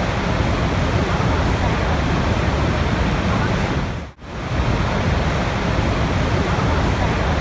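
Steady rushing water, an even wash of noise that drops out for a moment about four seconds in and swells straight back.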